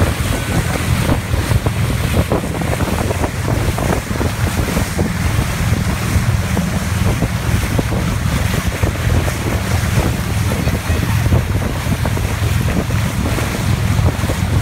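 Wind buffeting the microphone and water rushing along the hull of a motorboat running at speed across a lake, a loud, steady rumbling rush.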